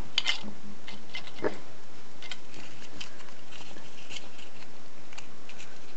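Thin gold foil from a chocolate coin wrapper crinkling in scattered short crackles as fingers press and pinch it into a small cup shape.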